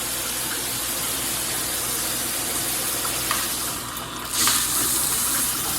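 Water spraying from a GRICH rainfall and handheld combination shower head, a steady rushing hiss. About four seconds in it briefly thins, then comes back a little louder.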